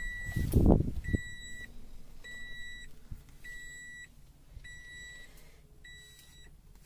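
Toyota Vios cabin warning chime beeping steadily, one high half-second beep about every second, about six times, with the front door standing open. There is a brief low thump about half a second in.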